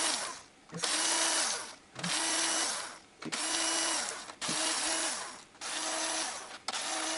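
Cordless drill-driver with a 13 mm socket, running in about seven short runs of roughly a second each, its motor spinning up at the start of each. It is undoing the camshaft bearing cap fasteners on a VAZ 2111 cylinder head.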